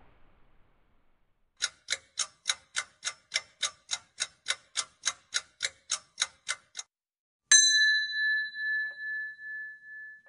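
Countdown-timer sound effect: clock ticks at about four a second for some five seconds, then a single bell ding that rings on, marking time up on the question.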